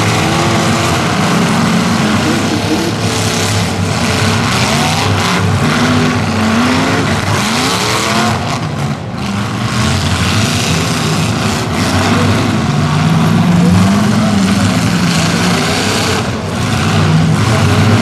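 Several demolition derby cars running with loud open exhausts, their engines revving repeatedly so that the pitch keeps rising and falling over one another.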